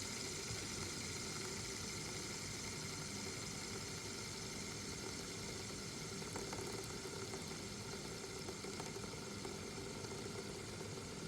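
Fidget spinner spinning on its bearing, a steady whir that slowly gets quieter as it winds down.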